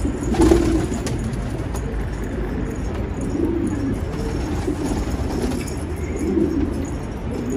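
Domestic pigeons cooing: several low, warbling coos spaced a second or two apart, over a steady low background rumble.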